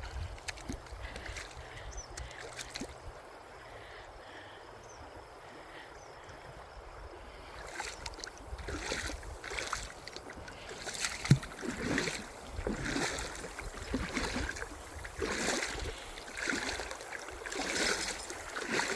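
River water flowing quietly, then splashing and sloshing in repeated strokes about once a second from about eight seconds in, growing louder, as of wading or a dog swimming through shallow water.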